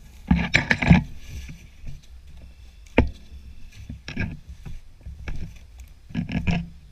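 Brush and branches swishing against a person pushing through dense scrub on foot, in irregular bursts, with a sharp snap about three seconds in and a steady low rumble underneath.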